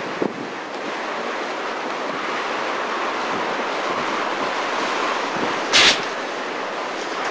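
Steady rushing noise of a bushfire firestorm, with strong wind buffeting the microphone. One short, loud crack comes about six seconds in.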